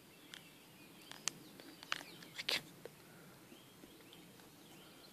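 Faint birds chirping over quiet open-air background, with a handful of short, sharp clicks and taps in the first half.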